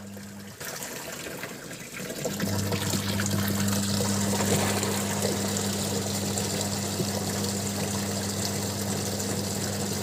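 Twin-tub washing machine's wash motor humming as its pulsator churns water in the wash tub. The hum stops briefly near the start and starts again about two seconds in, a pause at a change of direction now that the repaired timer turns the tub both ways.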